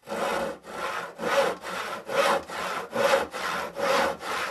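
Hand tool worked back and forth on wood in rhythmic rasping strokes, about two a second.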